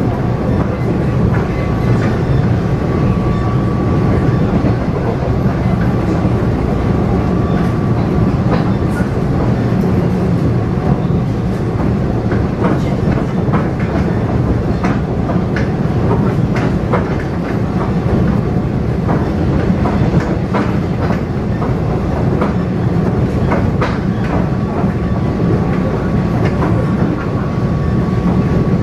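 Taiwan Railway EMU500 electric multiple unit running at speed, heard from inside the carriage: a steady rumble of wheels on rail, with scattered clicks and clacks from the track. A faint steady high tone is heard for the first several seconds and again near the end.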